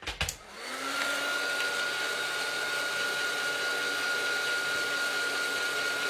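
Craft heat tool switched on with a click, its fan whining up to speed within the first second, then running steadily with a high whine and a rush of air as it dries crackle paste on a card.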